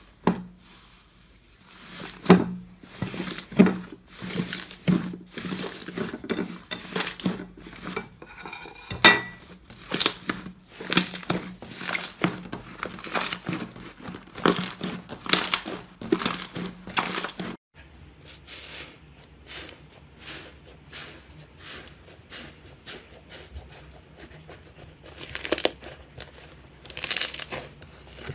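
Slime being pressed and worked by hand, giving rapid crackling and popping clicks. The clip changes about two-thirds of the way through, and the crackles become sparser, with louder bursts near the end.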